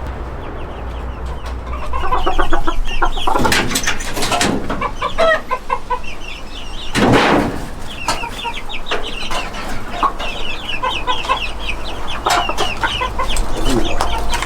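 Chickens clucking, many short calls one after another, with loud harsh squawks about three to four seconds in and again around seven seconds.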